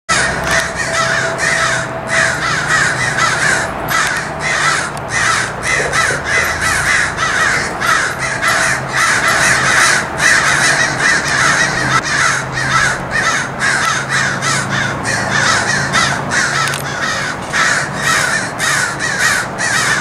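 A flock of crows cawing nonstop, many calls overlapping in a loud, agitated chorus. It is the alarm cawing crows raise at a predator, here a big hawk hidden in the tree they are calling from.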